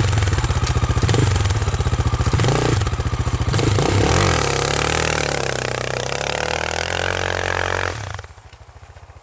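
Motorcycle engine running loudly and being revved, its pitch rising and falling, then dropping off sharply to a quieter steady run near the end.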